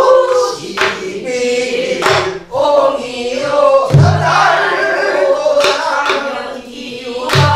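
A woman singing a Namdo folk song, accompanying herself on a buk, the Korean barrel drum. Sharp clacks of the stick on the drum come every second or two under the held, bending vocal line, with deep booms from the drumhead about four seconds in and again near the end.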